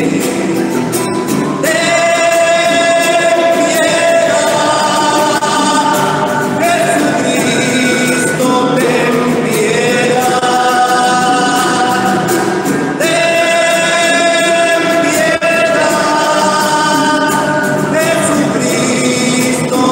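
Voices singing a liturgical chant in long, held notes that change pitch every few seconds.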